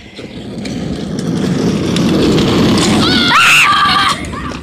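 Hard plastic wheels of a child's push-along ride-on toy car rumbling over asphalt, growing louder over the first two seconds and dropping off about four seconds in. A child's high, wavering squeal rises over it about three seconds in.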